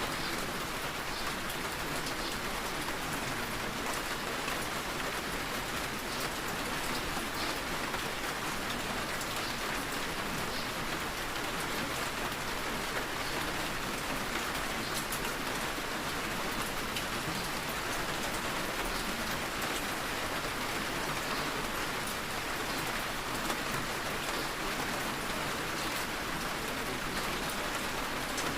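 Steady rain falling: an even, unbroken hiss with scattered faint drop ticks.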